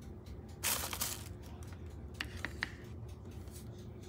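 Blender parts handled on a stone countertop: a short scraping rustle, then three quick light clinks close together.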